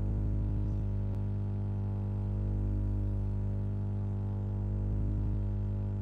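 Steady electrical mains hum, a low buzz made of many evenly spaced tones, with a faint click about a second in.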